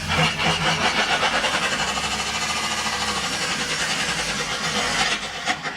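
2015 Subaru WRX's turbocharged flat-four engine running with a rapid, even knock, about seven beats a second. The knock is the sign of bearing damage caused by metallic debris in the engine.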